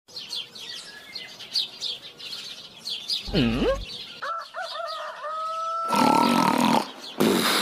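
Birds chirping, then a whistling glide that swoops down and back up about three seconds in, followed by a few short rising tones and a held tone. Two loud harsh noises come near the end.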